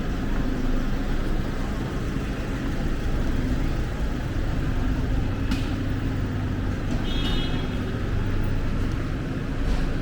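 Steady city road traffic: car and bus engines running and tyre noise, with a low engine hum underneath. There are two sharp clicks, and a brief high-pitched beep a little past the middle.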